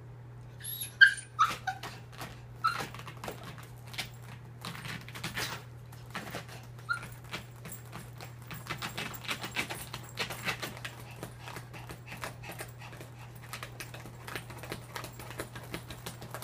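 Chihuahua whining and whimpering in high, short cries inside a zipped fabric pet stroller, a few of them about a second in and more scattered later. Rapid scratching and rustling against the stroller's fabric go on throughout as she tries to get out, signs of distress at being shut in alone.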